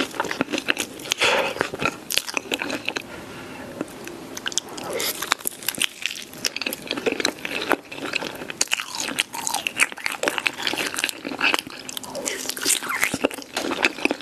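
Close-up crunching bites and chewing of crispy fried chicken dipped in melted cheese sauce, with many irregular crackly crunches.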